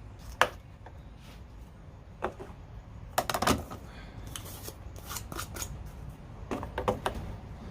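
Scattered light clicks and clinks of small hard objects being handled, a few at a time at irregular intervals, over a low steady background hum.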